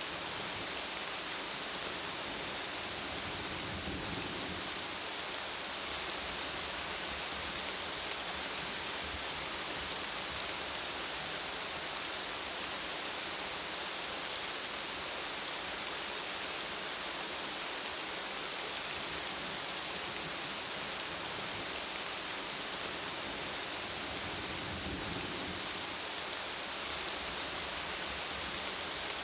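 Steady rain falling, an even hiss, with a soft low rumble twice, about four seconds in and near the end.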